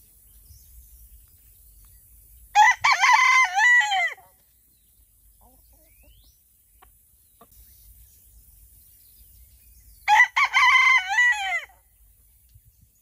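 A rooster crowing twice, each crow about a second and a half long and dropping in pitch at its end, the second crow about seven seconds after the first.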